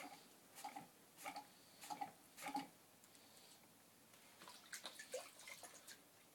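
Soft wet splashes and drips from a potter's hands dipping into a bucket of water beside the wheel: four short splashes about half a second apart, then a run of light clicks and taps about two-thirds of the way through.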